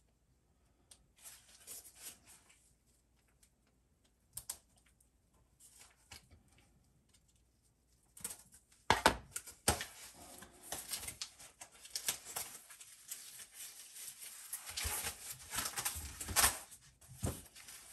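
A mailed package being unwrapped by hand: packing tape, cardboard and wrapping torn and rustled. Sparse, soft rustles at first, then busier crackling and crinkling from about eight seconds in, with a sharp tear or snap near nine seconds.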